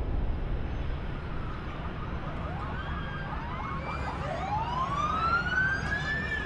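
A siren-like wail that rises steeply in pitch over the last two seconds, with fainter gliding tones before it, over a steady low rumble.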